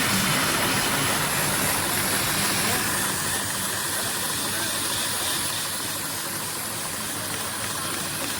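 Steady hiss with a faint low hum of machinery running, starting abruptly and easing slightly about three seconds in.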